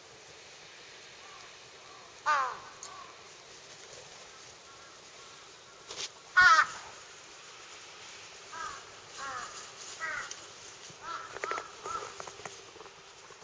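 Crows cawing: a single caw about two seconds in, a louder one about six and a half seconds in, then a run of quieter caws over the last few seconds.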